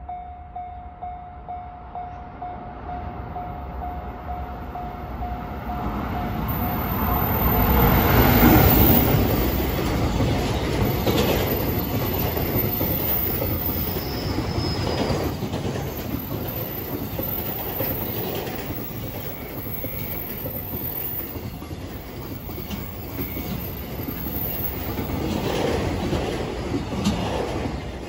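JR Freight EF510 electric locomotive and a long train of container wagons passing, with the wheels clattering over the rail joints; loudest as the locomotive goes by, with a brief high wheel squeal partway through. A level-crossing warning bell rings at first until the train drowns it out.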